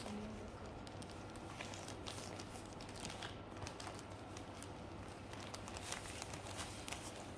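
Faint crinkling and rustling of packaging being handled.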